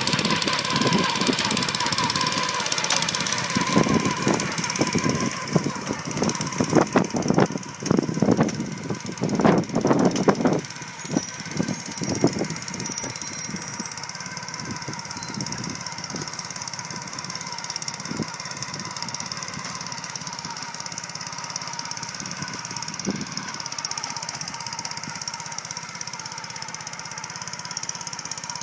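Walk-behind core lawn aerator running. Its engine chugs with heavy, irregular thumps for the first ten seconds or so, then runs more steadily.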